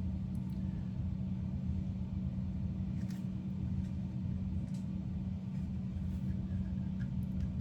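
Steady low hum with a low rumble underneath, with a couple of faint light clicks, about three and five seconds in.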